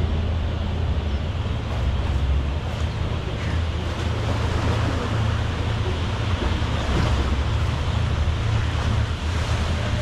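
Wind buffeting the microphone in a steady low rumble, with a rushing wash of river water from a passing tour boat's wake.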